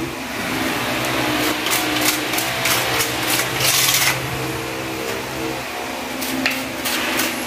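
A hand rubbing and pressing grout into the joints of glossy textured wall tiles: irregular scraping strokes, heaviest in the first half, over a steady low hum.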